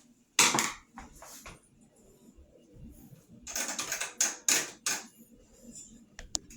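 Clacks and clicks of the parts of a Tatung table fan being handled and fitted during reassembly: one loud clack about half a second in, a few lighter clicks, then a quick run of several clacks a little past the middle.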